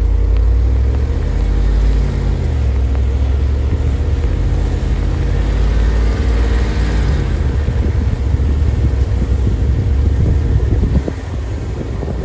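Jeep Rubicon driving slowly along a snow-packed trail, heard from outside next to the front tyre: a steady low rumble of engine and tyres that eases a little near the end.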